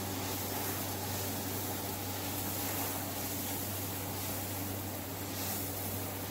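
Steady electric hum with an even rushing noise underneath, holding constant throughout, like a running fan motor.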